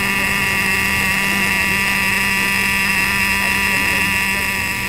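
Small electric motor of a radio-controlled model car running at one steady speed: a loud, even, high-pitched buzzing whine.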